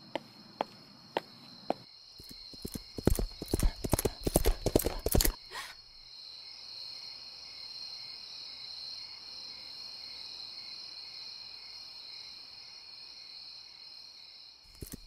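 Single footsteps, then horse hooves clip-clopping in a quick dense run for about three seconds. A steady high-pitched background tone fills the rest, and the hoofbeats start again just before the end.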